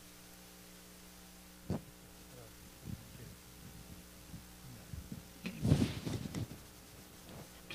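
Steady electrical hum from the hall's sound system, broken by a sharp thump about two seconds in as a handheld microphone is handled, then soft knocks and rustling. A short muffled voice comes about six seconds in.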